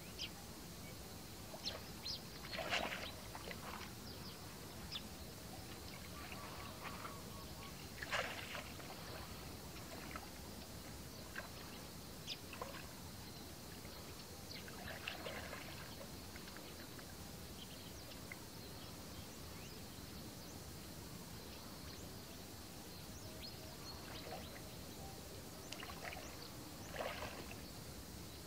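Shallow muddy water splashing and sloshing in a few short bursts as a person wades and works a bamboo plunge-basket fish trap in it, over a steady background hiss.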